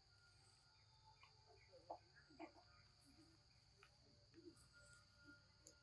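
Near silence: a faint, steady, high-pitched insect drone in the forest, with a few faint soft ticks.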